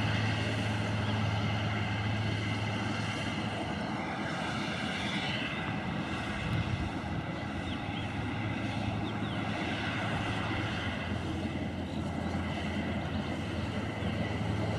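Combine harvester running steadily, a continuous engine drone with a strong low hum.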